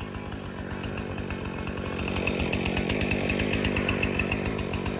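Jonsered CS2255 two-stroke chainsaw running steadily, a little louder from about two seconds in.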